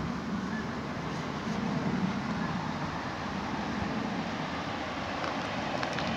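Steady low rumbling background noise outdoors, with no distinct events.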